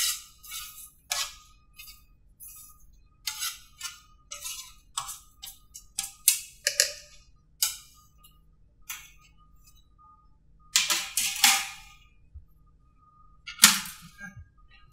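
A metal spatula scraping and tapping against a metal sheet pan as roasted vegetables are pushed off it: a run of short, sharp scrapes and clicks. It ends in louder metal clatter about 11 seconds in and again near the end.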